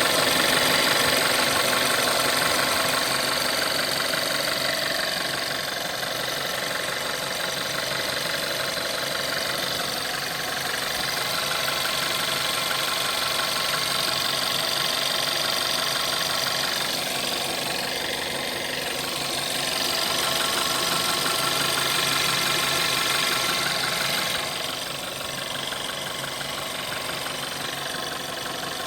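Volkswagen 1.4 TSI (CAXA) petrol engine idling steadily, a little quieter about 24 seconds in.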